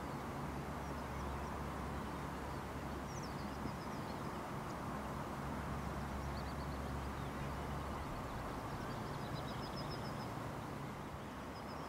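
Open-air ambience: a steady background hiss with a low hum that stops about eight seconds in, and small birds chirping and trilling several times.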